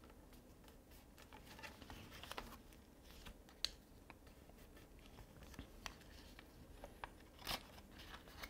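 Faint rustling and creasing of a sheet of 90 g paper being folded and pressed by hand, with a few soft ticks, the sharpest about three and a half seconds in.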